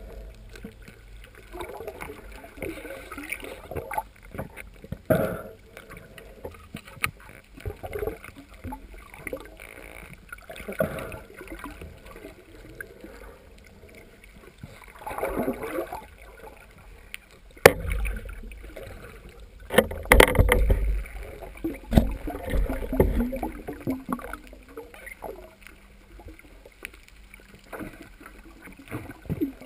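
Underwater sound picked up through a camera housing: irregular swishing and gurgling of moving water, with a cluster of sharp knocks and low thumps about two thirds of the way through.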